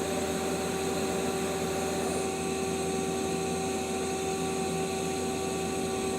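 Sub spindle of a 2006 Mazak Quick Turn Nexus 200MS CNC turning center running steadily at about 2000 rpm: a steady machine whine with a hum under it. A faint higher tone slides down and fades about two seconds in.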